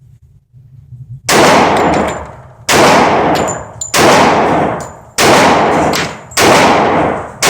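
Glock 21 .45 ACP pistol firing hand-loaded rounds: five shots at a slow, even pace, about one every 1.2 seconds, each with a long echoing decay, and a sixth shot right at the end.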